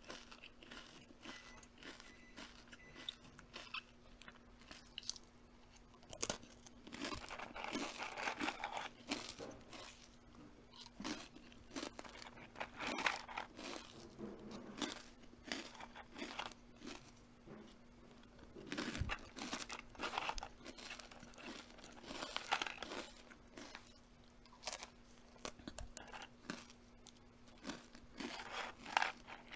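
Crunchy food being bitten and chewed: irregular runs of crisp crunches with short pauses between them, over a faint steady hum.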